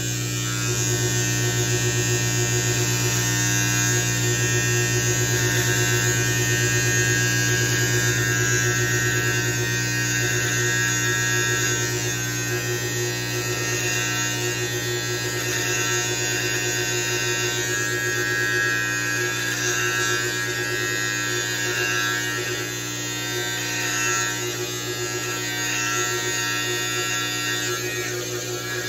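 Electric beard trimmer with a comb guard running with a steady buzz as it is moved over the beard, cutting the hair.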